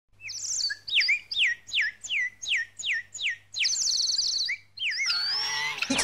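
Small songbird singing: a series of clear whistled notes, each sliding downward, about two to three a second, broken by a rapid trill partway through.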